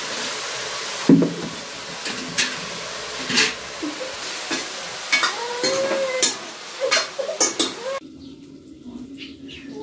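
Chopped mushrooms sizzling in a steel kadhai on a gas stove, with sharp clinks and scrapes of a metal spoon against the pan as they are stirred. The sizzling cuts off abruptly near the end, leaving a few faint clinks.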